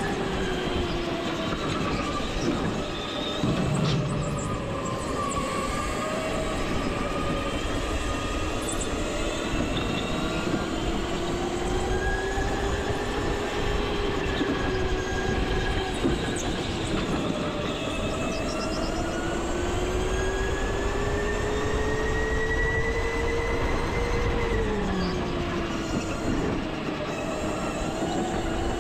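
Go-kart running around a track. Its motor note rises and falls in pitch with speed in slow glides of a few seconds each, over a steady rush of noise.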